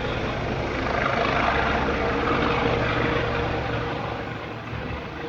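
Police helicopter hovering low overhead: a steady rotor and engine drone that eases off a little near the end.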